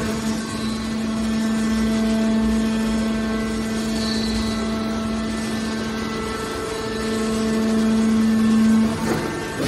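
Hydraulic can baler running: a steady machine hum from its motor and hydraulic pump, growing a little louder about seven seconds in and easing off shortly before the end.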